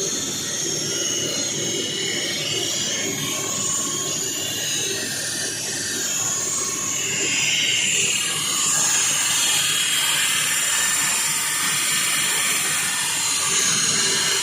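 Walk-behind floor saw cutting into a concrete floor, its blade grinding steadily with a high whine. It grows a little louder about eight seconds in.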